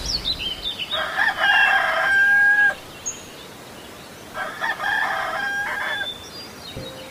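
A rooster crowing twice, each crow under two seconds and ending in a long held note, the second coming about three and a half seconds after the first. Small birds chirp faintly at the start.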